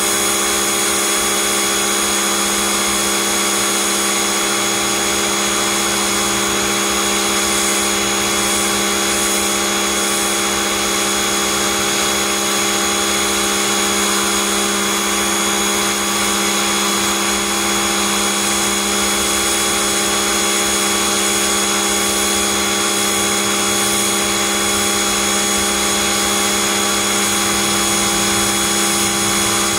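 Pressure washer running steadily with a constant machine hum, its wand spraying water onto concrete.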